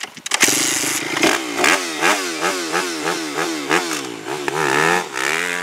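Kawasaki dirt bike engine catching, then revved in quick throttle blips, about two or three a second, before holding a steadier higher rev near the end.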